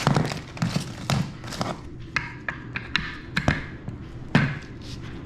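Plastic caster being pushed and knocked into the socket of an office chair's star-base leg: a string of irregular sharp clicks and knocks, the loudest about four and a half seconds in. The caster stem is stuck and not seating.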